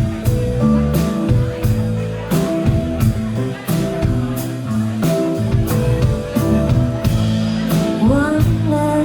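A live band playing a pop-rock song, with a steady drum beat, bass and guitar.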